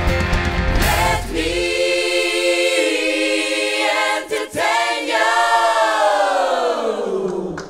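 A rock band with drums plays the last moment of a song and drops out about a second and a half in, leaving a group of singers holding a long chord unaccompanied. After a short break a little past the middle, the voices take up a last chord that slides steadily down in pitch.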